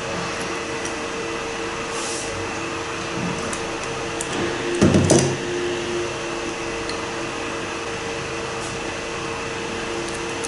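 Steady hum of workshop machinery with a constant tone, and a short clatter about five seconds in as metal pump parts are handled during hand assembly of a diesel high-pressure fuel pump.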